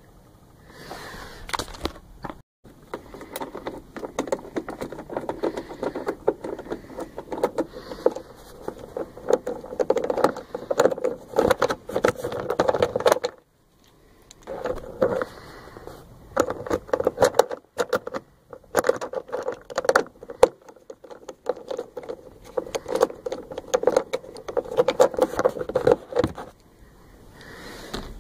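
Steady clattering, rattling and scraping of hand work on parts in a pickup truck's cab, dense with small sharp clicks, cut off abruptly to silence a few times.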